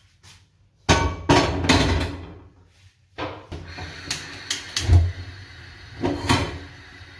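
Metal frying pan clattering down onto the grate of a gas hob, several loud knocks about a second in. Then a burner is lit with a few sharp clicks, a heavy knock and more pan knocks follow, and a faint steady hiss of the gas flame runs under them.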